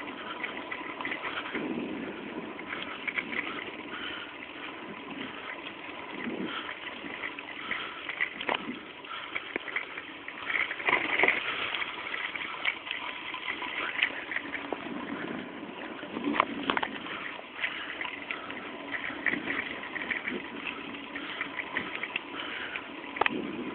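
Fixed-gear bicycle riding along a dirt and paved trail: tyre rolling noise with wind rushing over the microphone, and scattered knocks and rattles as the bike goes over bumps.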